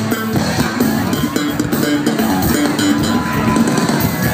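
Live rock band playing, with electric guitar, bass guitar and drums, heard from the audience.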